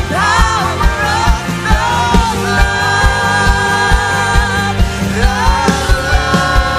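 Live worship band playing with a steady kick-drum beat, bass and sustained keyboard chords, with singing voices coming in early on and again near the end.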